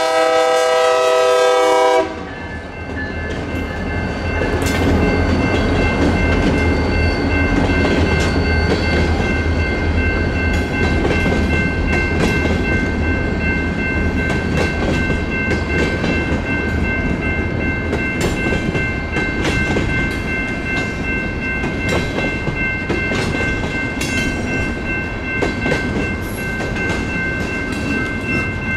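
Diesel locomotive horn sounding and cutting off abruptly about two seconds in. A freight train's cars then roll across the crossing with clickety-clack from the wheels on the rail joints. The crossing's electronic bells ring steadily throughout.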